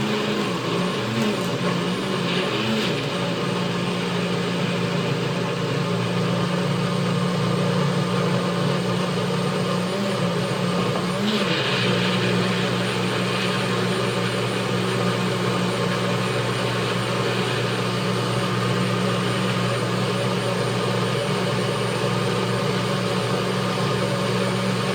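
Blender running loud and steady, churning a smoothie with ice cubes and frozen mango. Its motor pitch wavers in the first few seconds and again briefly about ten seconds in as the load shifts, then holds steady.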